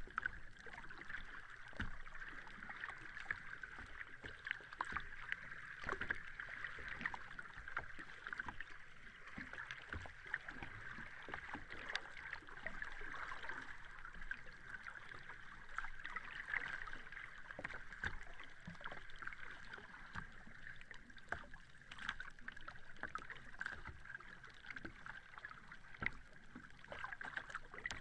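Sea water lapping and sloshing: a steady hiss of moving water dotted with many small splashes and clicks.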